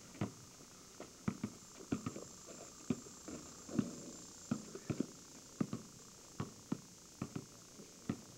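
Basketball bouncing on pavement: a string of sharp, irregular thumps about once or twice a second.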